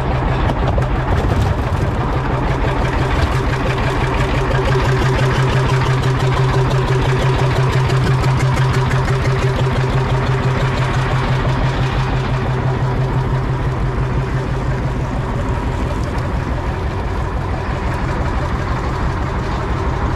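Boat engine running steadily with a fast, even pulse and a strong low hum that eases off somewhat about three-quarters of the way through.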